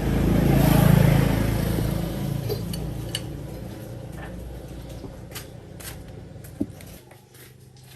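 A motor engine swells to its loudest about a second in, then fades, and its hum drops away about seven seconds in. Scattered light metallic clinks of tools on metal sound throughout.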